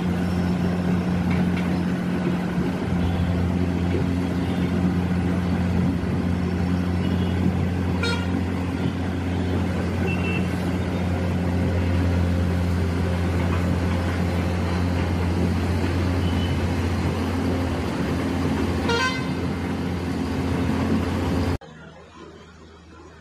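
An excavator's diesel engine running with a steady low hum over the rush of churning floodwater, with two brief horn toots, one about eight seconds in and one near the end. Near the end the sound drops suddenly to a much quieter water noise.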